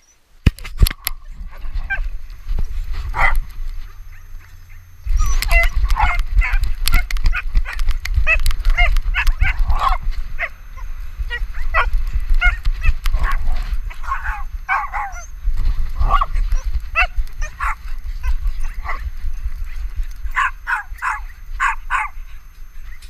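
Dogs barking and yipping in rough play, in short sharp calls scattered throughout and a quick run of several near the end. From about five seconds in, a low rumble of the camera bouncing on the back of a running dog.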